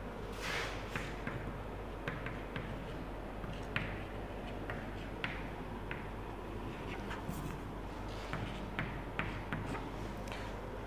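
Chalk writing on a blackboard: a run of short, sharp taps and scratches as letters are formed, with a longer scrape about half a second in, over a steady low hum.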